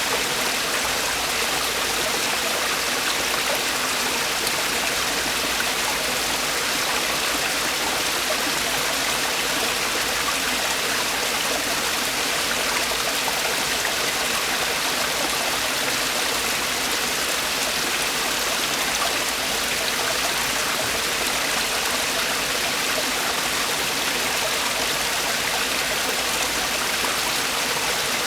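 Mountain stream water falling and splashing over rocks in a small cascade, a steady, even rush.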